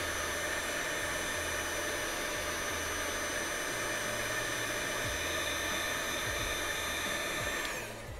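Electric heat gun running steadily, its fan blowing hot air with a faint steady whine. Near the end it is switched off and the fan winds down.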